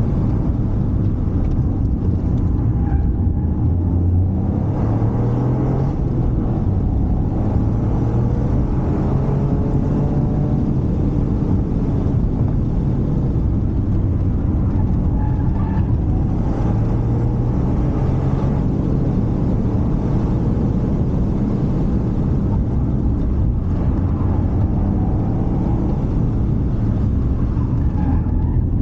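Toyota GR Yaris's turbocharged 1.6-litre three-cylinder engine and road noise under way, its pitch climbing and dropping back again and again as the car accelerates through the gears.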